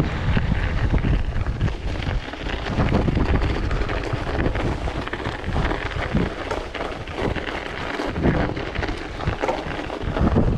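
Strong wind buffeting the microphone in a snowstorm, a loud, gusty rumble that rises and falls every second or so.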